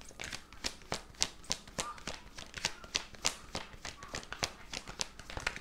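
A tarot deck being shuffled by hand: a steady run of quick card taps and flicks, about three or four a second.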